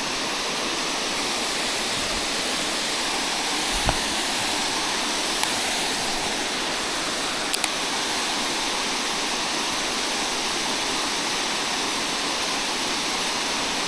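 Steady rush of fast-flowing river water, with a short knock about four seconds in and a quick double tick a few seconds later.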